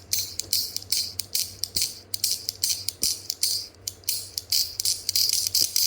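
ACEdc Emoji fidget clicker being clicked over and over by thumb: a quick, uneven run of sharp, bright clicks, several a second.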